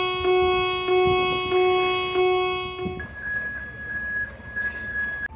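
Intro music: a low keyboard note repeated about every two-thirds of a second, then, about three seconds in, a higher single note pulsing gently.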